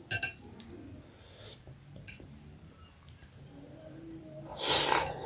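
Close-up eating sounds: a utensil clinks against a dish just after the start, then a loud, short, breathy intake of air about four and a half seconds in.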